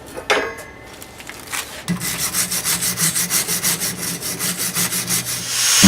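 A tool knocks once or twice, then from about two seconds in comes a steady run of sawing strokes, several a second.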